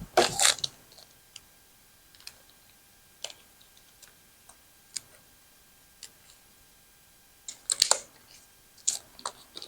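Scattered light clicks and taps from handling an oscillating multi-tool and its blades, with a few denser bursts of clicking about half a second in and again near the end.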